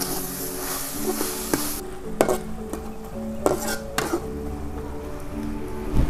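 Metal spatula scraping and clinking in a steel wok as turi flowers and chillies are stir-fried, with a few sharp clinks. A frying sizzle drops away about two seconds in, and a soft melody runs underneath.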